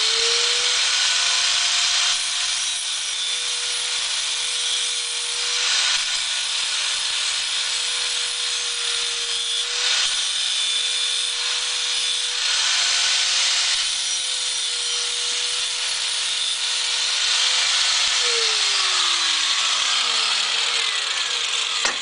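Angle grinder grinding, a steady whine under a dense hiss of the disc working the part. About 18 seconds in it is switched off and the whine falls away as the disc spins down.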